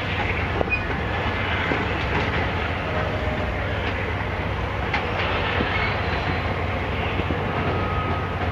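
Passenger train cars rolling across a steel trestle: a steady rumble of wheels on rail, with a few faint clicks.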